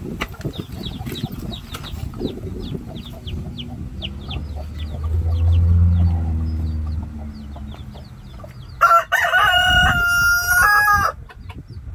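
Chicks peeping in quick, repeated falling chirps while hens cluck; near the end a rooster crows once, a loud call of about two seconds. A low hum swells and fades in the middle.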